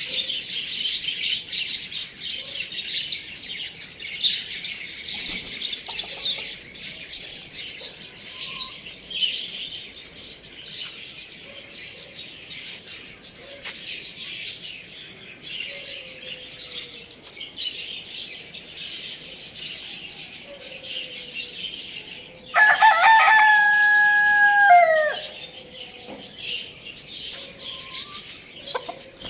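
Constant dense chirping of many small birds. Late on, a rooster crows once, loudly, for about two and a half seconds: a long held note that drops in pitch at its end.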